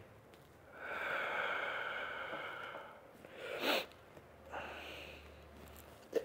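A man breathing heavily while holding a prone quadriceps stretch: a long breath out, a short sharp breath about three and a half seconds in, then a quieter breath out.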